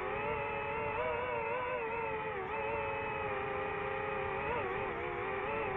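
DJI FPV drone's electric motors and propellers whining in flight, a steady whine of several tones whose pitch wavers up and down as the throttle changes.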